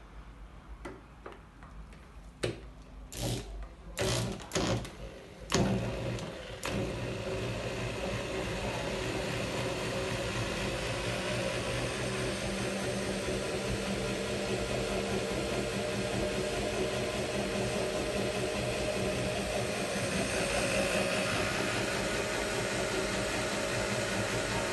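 A few sharp knocks and clicks, then an electric drill starts about six seconds in and runs steadily, spinning a manual honey extractor (centrifuge) adapted to be driven by the drill.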